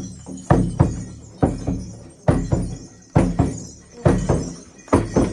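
Mongolian shaman's frame drum beaten in a steady slow rhythm, about one stroke a second, each stroke booming and dying away, as the shaman calls the spirits.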